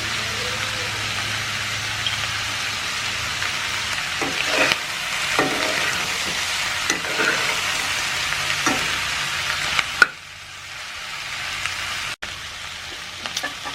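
Bhutan (chopped offal) frying in a hot karahi, sizzling steadily while it is stirred, with scattered short scrapes and clicks. The sizzle drops off sharply about ten seconds in and carries on more quietly.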